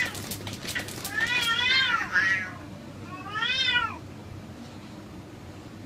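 Two domestic cats fighting: a flurry of scuffling clicks in the first second, then two long yowls, each rising and then falling in pitch, one about a second in and another about three seconds in, after which it goes quiet.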